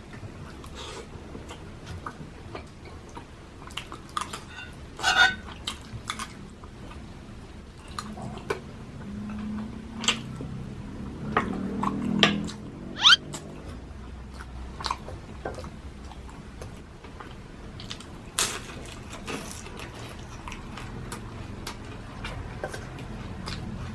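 Close-up mukbang eating sounds: chewing of lechon sisig, with scattered sharp clicks and clinks of utensils against a plate.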